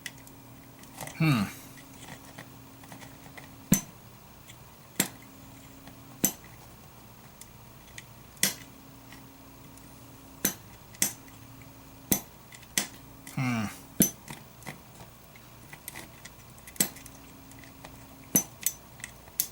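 Sharp clicks at irregular intervals as a small slide switch on a car audio amplifier is pressed and worked by hand, with a faint low hum that cuts in and out. The switch is faulty: its contacts are fouled with dirt and grime.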